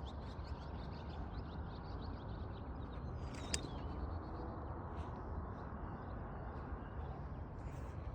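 Wild songbirds chirping and singing in quick, repeated high notes over a steady low background rumble. A single short, sharp, louder sound comes about three and a half seconds in.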